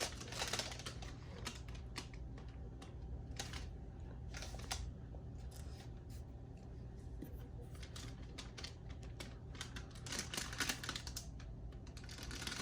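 Faint, scattered rustles and light clicks as a pair of sneakers and their packing are handled and turned over, coming in short clusters.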